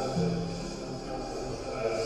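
Music with slow, held notes.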